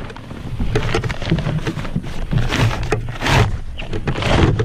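Wind buffeting the microphone in gusts, mixed with close rustling and light knocks as a blanket is tucked around gear in a canoe.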